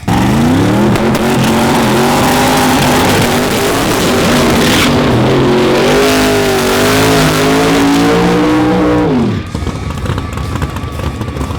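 Drag racing cars making a full-throttle pass: the engines come in suddenly and loud, the note climbs over the first two seconds and stays high and wavering, then falls sharply and cuts back about nine seconds in as the drivers lift.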